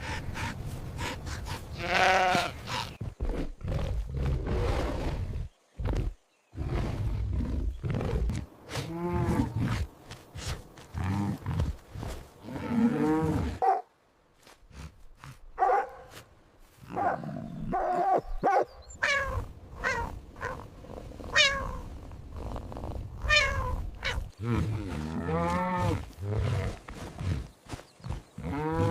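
Recorded animal calls: a string of separate pitched cries that slide in pitch, with short pauses between them.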